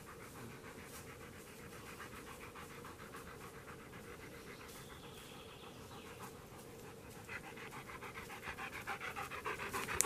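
German Shepherd dog panting rapidly, faint at first and growing louder toward the end as it comes close.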